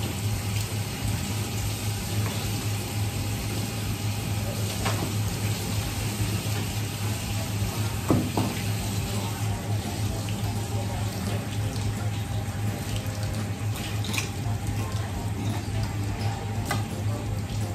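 Water running steadily from a tap, over a steady low hum, with a few sharp knocks; the loudest knock comes about eight seconds in.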